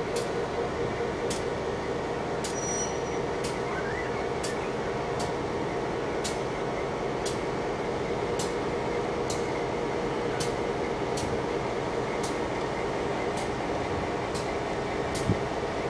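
Diesel locomotive engine running steadily as the locomotive rolls slowly past, with a strong drone and light clicks about once a second.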